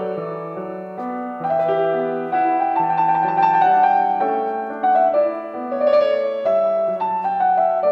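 Yamaha grand piano played solo: a classical piece with a melody moving over held chords, each note sounding for about half a second.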